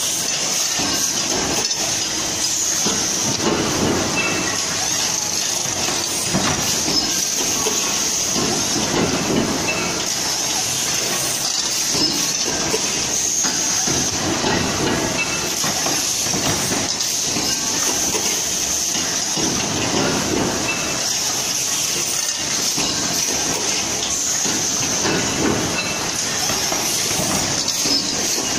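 Machinery of an automatic pressure cooker production line running: a constant high hiss with irregular metallic clattering and clanking every few seconds as the stations cycle.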